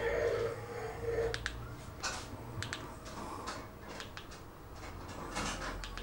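Light clicks of remote-control buttons being pressed, scattered singly and in quick pairs, over a faint steady low hum.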